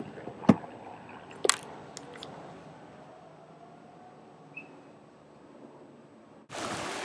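Several sharp knocks and rubs from a handheld camera being moved about, over a faint hiss. Near the end the sound changes suddenly to the steady splashing of fountain water.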